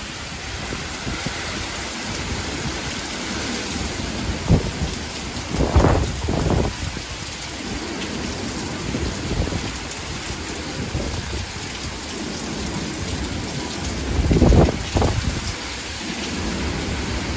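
Heavy hurricane rain pouring steadily, with several loud, low rumbling bursts: one short one a few seconds in, a stronger pair around six seconds in, and another near the end.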